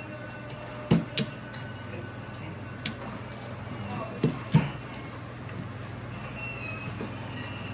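Mahjong tiles clacking on a table: a pair of sharp clacks about a second in, a lighter one near three seconds, and another pair around four and a half seconds, over a steady low hum.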